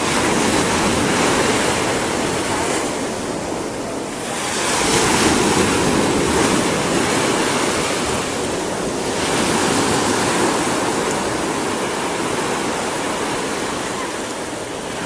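Rushing noise of surf, swelling and easing every few seconds as waves break and wash in.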